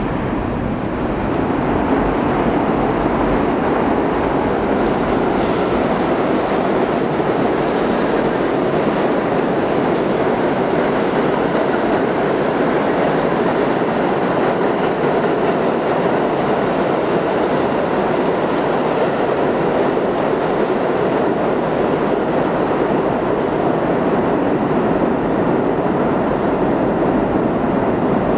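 New York City Subway train running through an underground station: a loud, steady rumble of steel wheels on the rails, with clicking over rail joints and a faint high wheel squeal.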